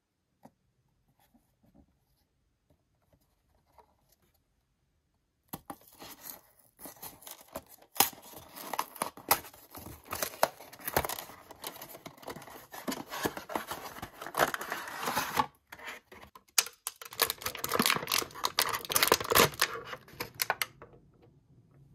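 Toy packaging being torn open and crinkled by hand: a dense crackling run of tearing and rustling with sharp snaps, starting about five seconds in, pausing briefly about two-thirds of the way through, and stopping near the end. A few faint light taps come before it.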